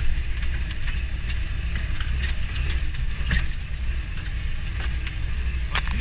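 A GAZ-66 truck heard from inside its cab while it drives over rough, boggy ground: the engine drones steadily and low, and the cab gives scattered rattles and knocks, the sharpest a little before the end.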